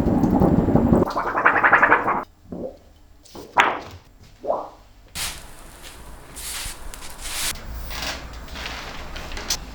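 Printmaking work sounds: a loud rough rushing noise for about two seconds, then three short separate strokes, then a quieter run of quick scratchy strokes.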